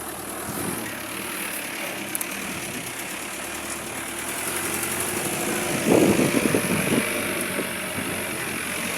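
An engine running steadily, growing louder and rougher for a moment about six seconds in.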